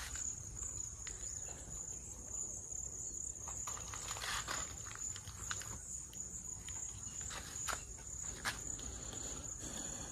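Insects chirring steadily at a high pitch, with a few faint clicks from handling a phone charger and cable.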